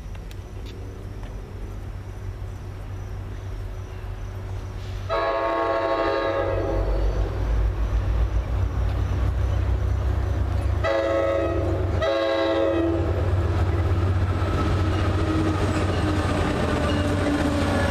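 NJ Transit GP40PH-2B diesel locomotive approaching on a commuter train, sounding its multi-note chime horn in two blasts of about two seconds each, about five seconds in and again about eleven seconds in. The diesel engine's low rumble grows louder as the train draws near.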